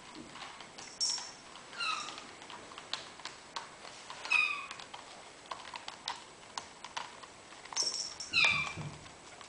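Bengal kitten's claws scratching and plucking at a sisal scratching pad, a quick uneven run of scrapes and clicks, with three short mews that fall in pitch, about two seconds in, past four seconds and near the end. A small toy bell jingles briefly twice.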